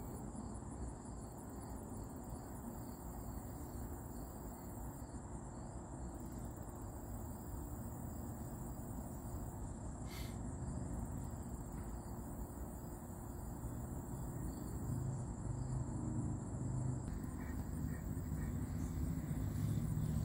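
Insects chirping in a steady, high-pitched pulsing chorus, over a low rumble that swells in the last few seconds.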